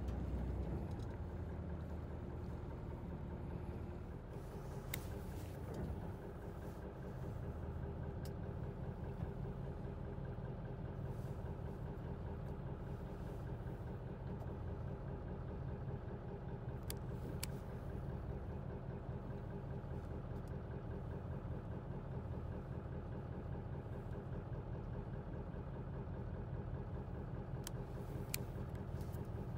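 Fishing boat's engine running steadily at a low, even pitch, with a few sharp clicks now and then.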